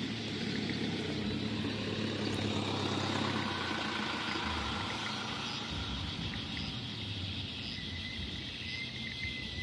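A motor vehicle's engine idling with a steady low hum that weakens after a few seconds. A thin, high, steady tone comes in near the end.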